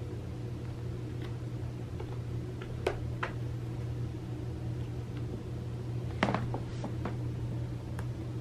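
A cat pawing at a crocheted toy mouse, making a few light taps and clicks, the loudest about six seconds in, over a steady low hum.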